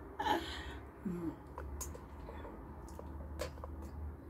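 Handling noise from a phone camera being repositioned: faint rustles and a few small clicks over a low steady hum, with a short hum of a woman's voice twice in the first second and a half.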